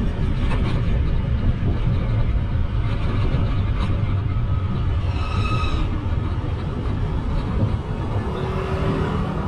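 Steady low rumble of wind and town road traffic heard from a moving bike, with a short high tone about five seconds in.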